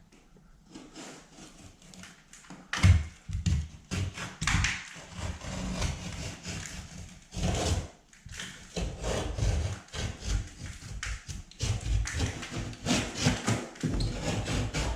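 A blade shaving and cutting along a drywall edge: many irregular scraping strokes with occasional knocks, quieter for the first couple of seconds.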